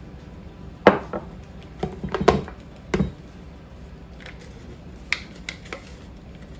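A plastic Ninja blender pitcher knocked and scraped with a spatula as cauliflower rice is emptied out of it: a string of irregular sharp taps and clunks, bunched in the first three seconds and again a couple of times later.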